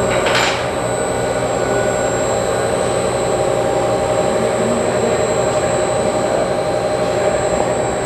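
Groen EE-100 electric steam-jacketed kettle and its add-on equipment running: a steady machine noise with a low hum and a thin high whine. A short sharp knock about half a second in.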